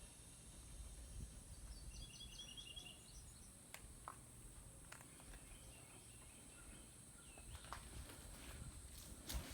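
Faint outdoor background with a bird's quick run of chirps about two seconds in, a few scattered sharp clicks and a steady high hiss.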